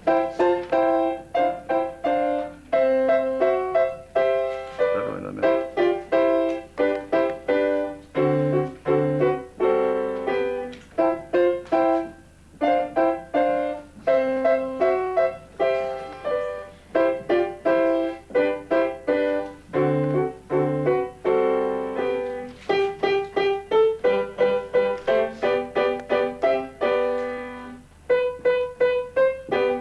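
Piano playing a simple student piece, single notes and small chords struck one after another at a steady pulse, as played by a young beginner; it pauses briefly near the end and then goes on.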